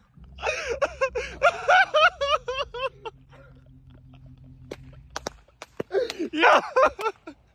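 Excited yelling and gasps from several young men reacting to a surprise, with a lull about three seconds in where a low steady hum and a few sharp clicks are heard, then another burst of exclamations near the end.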